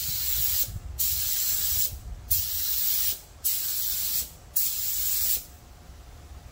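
Gravity-feed air spray gun hissing in five passes of about a second each, laying a wet coat of urethane automotive paint. The spraying stops about five seconds in.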